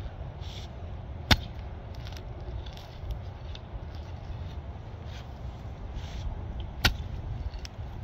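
Pickaxe striking a tree stump twice: two sharp hits about five and a half seconds apart, over a steady low rumble.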